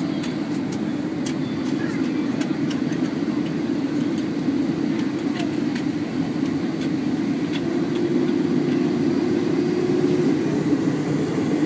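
Boeing 767-400ER's jet engines heard through an airliner's cabin window as it powers up for takeoff: a steady low rumble that grows a little louder about eight seconds in, with scattered faint clicks.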